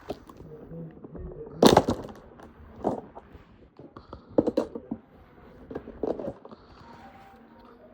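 Handling noise: a string of knocks, clicks and scrapes, the loudest a sharp knock about two seconds in and a quick cluster of clicks near the middle.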